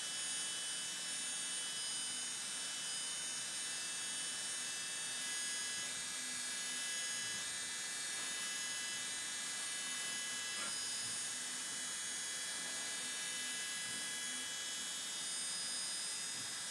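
UGINT PT 400S CNC machining center's high-speed spindle (rated 24,000 rpm) running a small end mill through a metal block: a steady high-pitched whine over a constant hiss.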